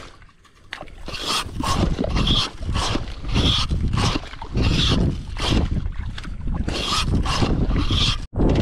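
Bare feet squelching and splashing in wet tidal mud and shallow water at a steady walking pace, about two steps a second, with wind rumbling on the microphone.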